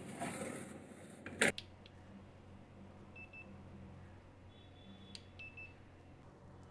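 Cloth rubbing on a granite countertop, then a sharp click about a second and a half in. After it come a few short, high beeps from a handheld infrared thermometer taking the temperature of the hot roti-maker plate, over a low steady hum.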